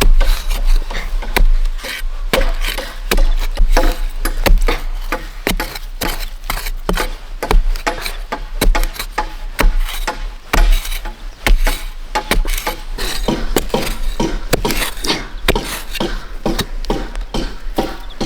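A tool striking bamboo over and over, sharp irregular knocks several a second, as bamboo poles are cut and worked.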